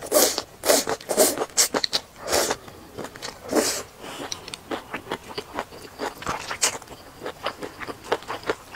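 A person eating, close-miked: several loud slurps in the first four seconds as a chopstick-load of shredded cold dish with green chilies is sucked into the mouth. After that comes chewing with many small crisp clicks, and chopsticks dig in a plastic tub near the end.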